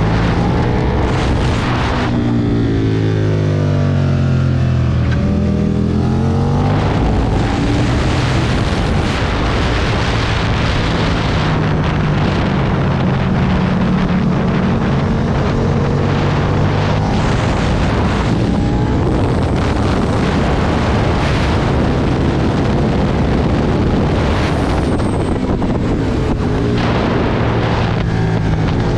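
Aprilia Tuono V2 motorcycle engine at speed on a racetrack, with wind rushing over the microphone. A few seconds in, the revs drop and climb again, as for a braking and downshift into a corner, then the engine pulls steadily.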